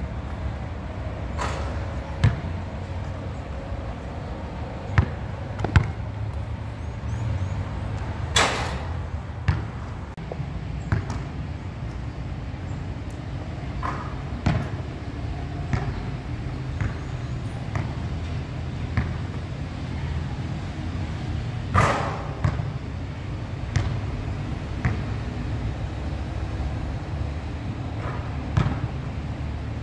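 Basketball thudding on a hard outdoor court at irregular intervals, with two louder, ringing hits about eight and twenty-two seconds in, over a steady low rumble.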